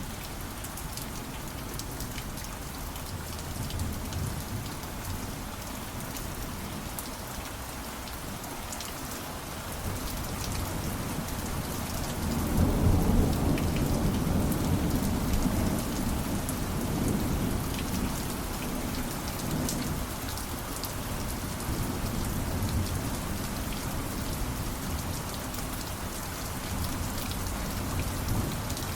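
Steady rain with scattered drop ticks, and a long roll of thunder that builds about a third of the way in, peaks near the middle and rumbles away slowly.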